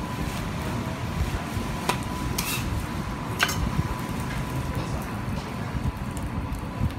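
Steady low rumble of restaurant kitchen background noise, with a few sharp clicks between about two and three and a half seconds in.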